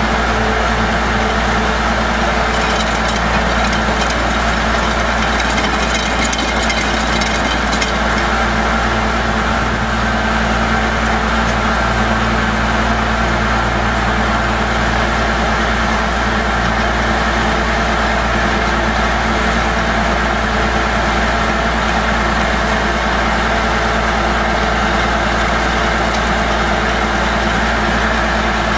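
Truck-mounted core drilling rig running steadily under power, an even engine hum with mechanical rattle, as the drill sweeps (clears) the borehole. A faint rapid clicking runs from about two to eight seconds in.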